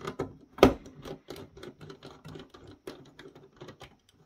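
Irregular small clicks and ticks of a precision screwdriver turning screws out of a circuit board, with one louder knock about half a second in.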